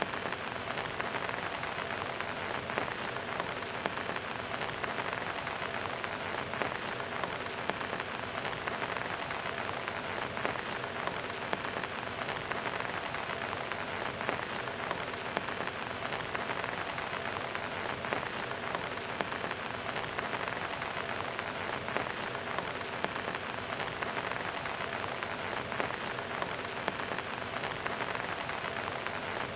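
Steady rain splashing on the top of a concrete block wall: an even, dense hiss dotted with many small ticks of individual drops.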